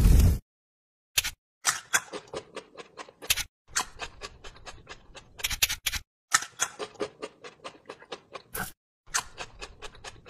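Crisp crunching bites, a few a second, in short runs broken by brief silences: the eating sounds of grilled corn, okra and sweet potato.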